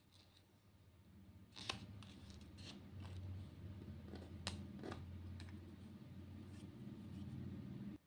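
Faint handling of paper stickers: fingertips pressing and rubbing a sticker onto a paper plate and picking up paper pieces, with a few sharp paper ticks and crinkles, one a couple of seconds in and the loudest about halfway. A steady low hum runs underneath and cuts off suddenly at the end.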